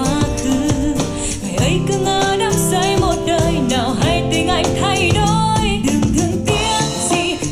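A song with a sung melody over bass and a steady beat, played on a Harman Kardon Citation 100 smart speaker.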